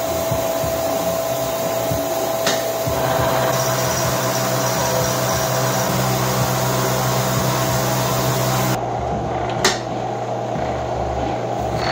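Milling machine with an end mill cutting cast iron: a steady whine over a loud even hiss. About nine seconds in the hiss drops away as the cutting goes on, and a single sharp click follows a second later.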